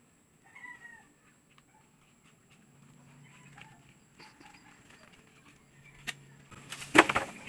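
Lengths of green bamboo set down onto a pile of cut bamboo poles, giving a sharp knock and then a loud hollow clatter near the end. Earlier there is a short animal call that rises and falls, like a cat's meow.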